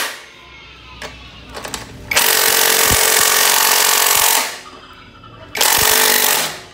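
A power tool runs in two bursts, one of about two seconds and a shorter one near the end, to take out the mounting bolts of a Yamaha NMAX's stock exhaust.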